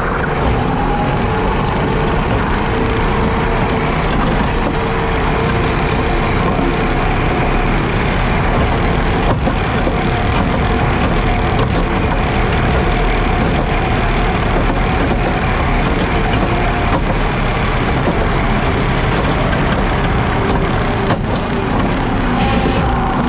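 JCB Teleskid skid steer's diesel engine running steadily under load while driving its 7-foot Jenkins bush hog, with a faint steady whine and a few light ticks over the engine noise.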